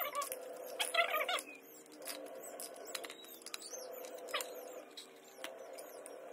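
Kittens mewing in short high squeaks a few times, the clearest about a second in, over light clicks and taps of plastic as the tubes and baskets of a plastic shelf rack are pushed together.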